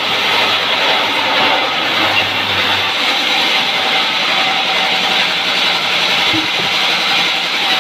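Large sawmill band saw running steadily, its blade ripping lengthwise through a log and slicing off a plank.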